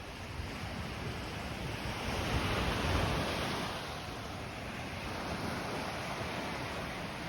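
Small sea waves breaking and washing up a sandy beach, with a swell of surf about two to three seconds in.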